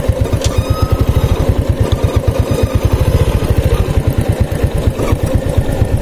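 Small motorcycle engine running at low revs, with a steady, rapid low pulsing.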